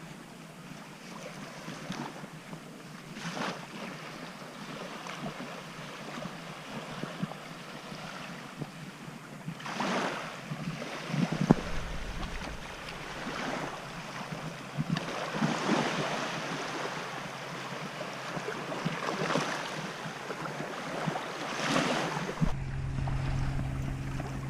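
Waves washing onto a beach, with wind on the microphone; the noise swells every few seconds. About two seconds before the end it cuts to a steady low hum.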